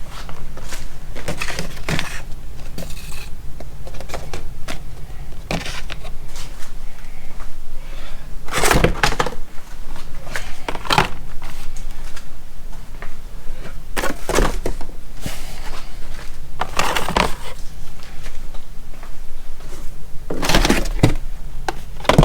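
Packing wrapping and cardboard crinkling and rustling in irregular bursts every second or few, with occasional knocks, as items are pulled out of a shipping box.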